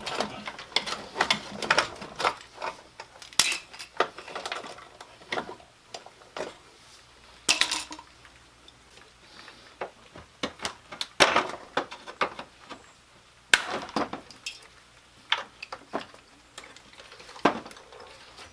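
Hand tools and metal parts clinking and knocking irregularly, with several louder sharp clanks spread through.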